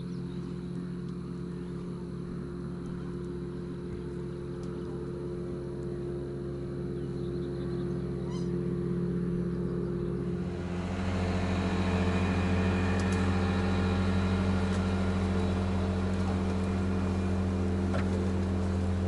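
Boat motor running steadily. About ten seconds in its note changes and it gets louder, with a rising hiss.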